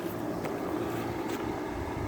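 Vintage Crossley 5000 BTU window air conditioner, an Emerson-built unit, running with its reciprocating compressor and fan on: a steady hum under the rush of air. Two faint ticks come about half a second and a second and a half in.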